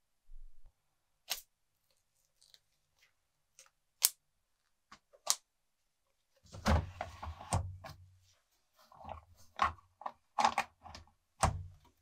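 Sharp plastic clicks and taps from handling a plastic tub of washing-machine cleaner, the loudest about four seconds in. About halfway through comes a longer scraping slide as the washing machine's plastic detergent drawer is pulled open, followed by a few more clicks and knocks.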